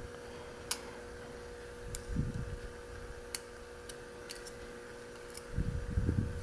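Small metal ticks as steel tweezers probe a lock cylinder's housing and pins, about five scattered clicks, with low handling bumps around two seconds in and a louder cluster near the end, over a steady faint hum.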